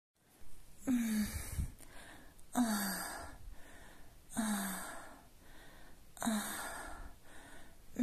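Breathy sexual moans, a meme sound effect: four moans roughly every two seconds, each sliding down in pitch.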